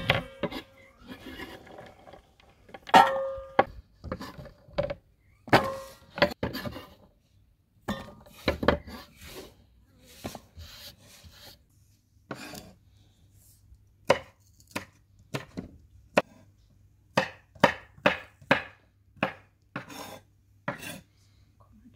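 Green beans being chopped with a kitchen knife on a wooden cutting board: a run of crisp knife taps, about two a second, in the second half. Earlier, a few metallic clinks with a brief ring from a stainless steel bowl and its lid.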